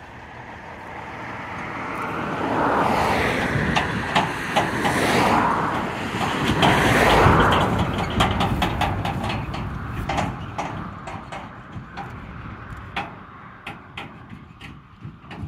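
A tractor pulling a high-sided silage trailer passes close by. Its engine and running noise swell to a peak about seven seconds in, then fade as it drives away, with repeated sharp knocks and rattles from the trailer over the rough stubble.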